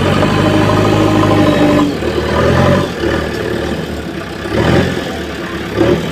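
Diesel engine of a JCB earthmoving machine running, its note changing about two seconds in.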